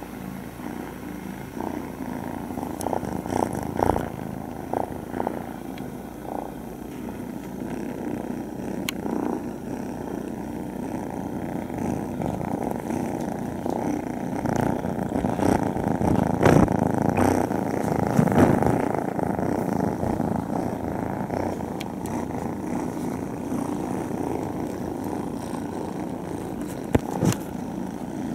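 A group of young kittens purring together close to the microphone, a steady continuous rumbling purr, with a few knocks mixed in.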